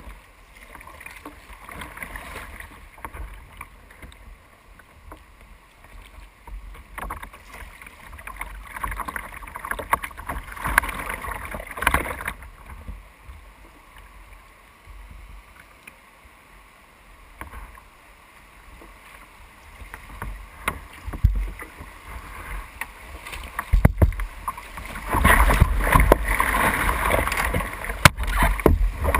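Water splashing and lapping against a kayak's bow as it moves down a creek, with scattered louder splashes in the first half. About 25 seconds in it becomes a continuous, louder rush as the boat runs through a riffle.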